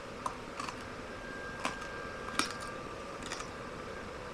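Light bulb glass crunching between teeth as it is chewed: a handful of short, sharp crunches spread over a few seconds.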